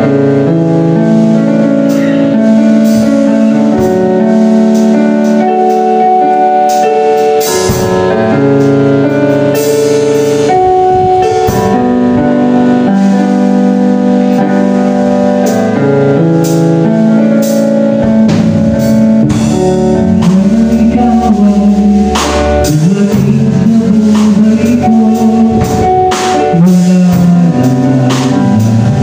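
Live band playing a slow pop ballad intro: electric keyboard chords alone at first, then drum kit and bass guitar come in about a quarter of the way through. The lead vocal begins near the end.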